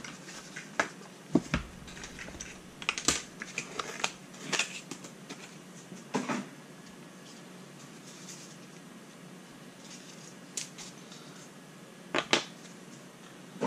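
A small cardboard product box being handled and opened by hand: scattered clicks, taps and light rustles of the packaging, with a quieter stretch after about seven seconds.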